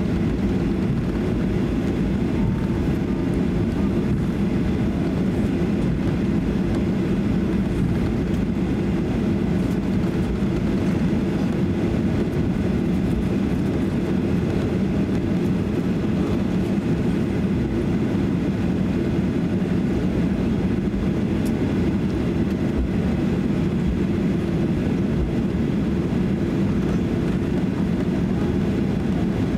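Cabin noise inside a Boeing 737-800 taxiing, its CFM56 engines at taxi idle: a steady low drone and rumble.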